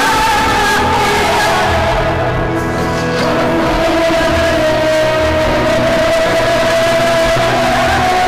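Music: a song with a long held note that slides down a little over the first few seconds, holds steady, then steps up near the end.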